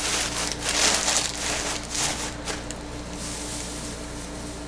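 Crinkle-cut kraft paper shred rustling and crackling as hands press and pack it down into a cardboard shipping box, several rustles in the first couple of seconds, then softer.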